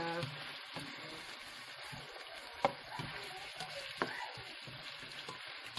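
Chicken wings sizzling in olive oil with onion and garlic in a nonstick frying pan, stirred with a spatula. There are two sharp clicks, about two and a half and four seconds in.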